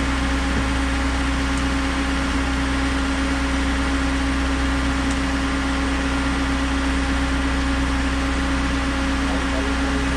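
Concrete pump's engine running steadily: a constant low hum with a steady drone above it, unchanging throughout.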